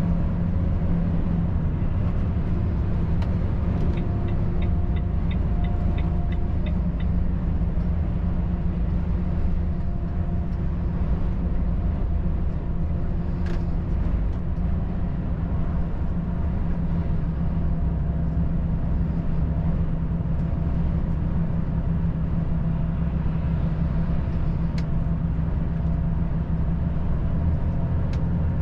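Volvo FH 540 truck's 13-litre six-cylinder diesel running steadily at highway cruise, a constant low drone with road rumble. A short run of quick, evenly spaced ticks, about three a second, comes in about four seconds in and stops about three seconds later.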